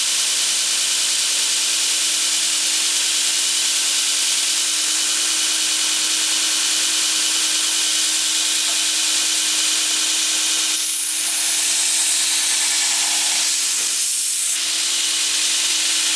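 Northridge 2x60-inch belt grinder running steadily: a loud, even hiss from the moving abrasive belt over a steady motor hum. The hiss brightens and changes for a few seconds past the middle.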